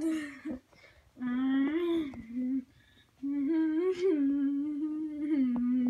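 A person humming a tune in two long phrases of held notes, with a short pause between them.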